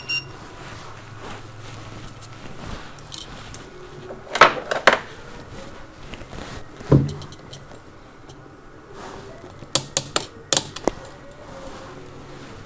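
Scattered small clicks and taps of hand tools on a repair bench, a few single taps and then a quick cluster of four or five, over a low steady background hum.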